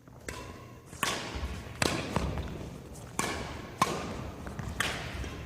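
Badminton rally: rackets striking the shuttlecock in quick exchanges, a series of sharp cracks roughly every second, each echoing in the hall, mixed with players' footfalls on the court.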